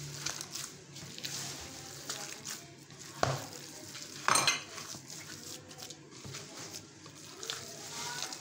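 Hand kneading a wet minced-chicken and gram-flour kofta mixture in a glass bowl, with soft irregular squishing and rustling. Two sharp knocks stand out, about three seconds in and again a second later.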